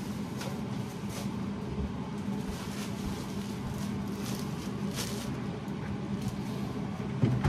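Steady low hum with scattered light rustles and clicks from a plastic bread bag being handled.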